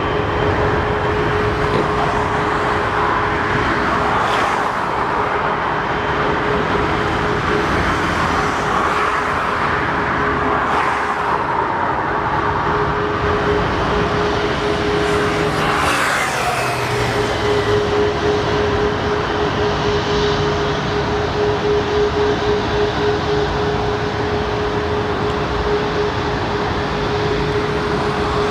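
Boeing 777-300ER's GE90-115B turbofan engines running at low power, a steady whine over a continuous rush. A brief falling sweep passes about halfway through.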